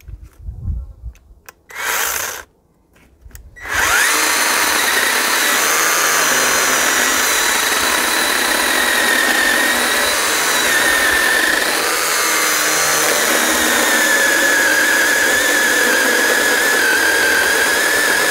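Worx 5-inch 20V battery mini chainsaw cutting through a thick log. After a few knocks and a short blip of the saw, the chain runs continuously from about four seconds in: an electric motor whine over the rasp of wood being cut, the whine dipping slightly in pitch under load later on.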